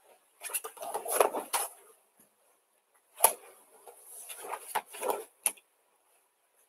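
A judoka and a homemade throwing dummy in a judo jacket going down onto tatami mats: rustling and scuffing of the jacket and bodies on the mat, a sharp thump about three seconds in, and a few short knocks near the end.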